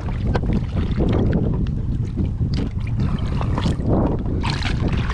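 Water splashing in short bursts as a hand holds a fish down in the sea alongside a boat, over a steady rumble of wind on the microphone.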